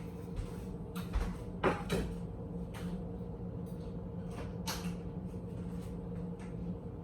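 Kitchen cookware and cupboards being handled: a handful of light knocks and clacks in the first few seconds, over a steady low hum.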